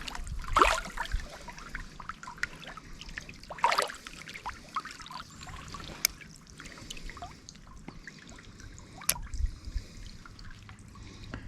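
Shallow river water trickling and running over stones, with a few short, sharp splashing sounds breaking through it.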